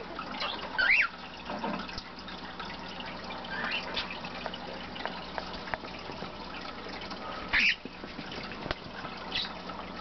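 Pet cockatiels giving short chirps and calls every couple of seconds. One brief rising chirp comes about a second in, and the loudest call comes about three-quarters of the way through.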